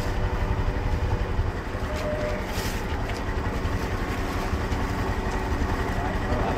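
Steady low rumble of a moving vehicle, even throughout with no distinct events.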